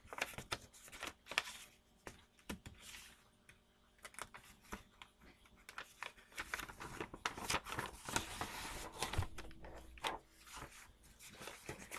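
Irregular rustling and clicking handling noises close to the microphone, with scattered short clicks and brief crinkly rustles.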